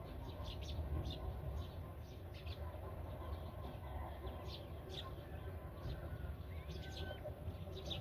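Black-winged kite chicks begging while being fed, with short, high chirps repeated irregularly. A steady low rumble runs underneath.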